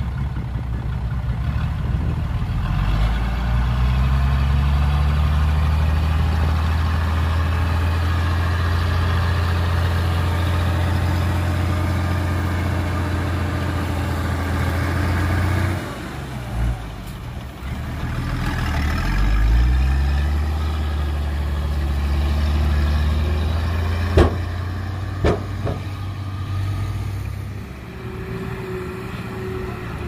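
Heavy diesel engine of a bulldozer or dump truck revving up a few seconds in and running steadily under load. It drops back about halfway through, then revs up again and runs on before easing off near the end. Two sharp knocks come a little after the second rev-up.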